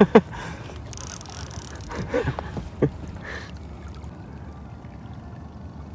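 Low, steady wash of river water and wind around a small fishing boat, with a few short knocks just after the start and brief handling sounds around two to three seconds in.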